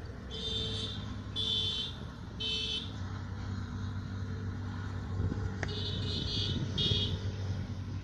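A high-pitched beeping: three beeps about a second apart, then a broken, quicker run of beeps a few seconds later, over a steady low hum.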